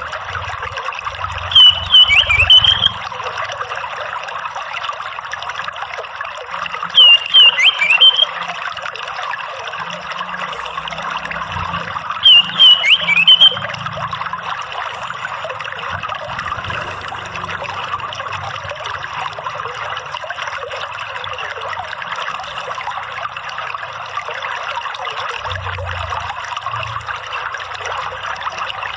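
Steady trickling running water, with three short loud bursts of orange-headed thrush calls, each a quick cluster of sharp falling notes, about a second and a half in, about seven seconds in and about twelve seconds in.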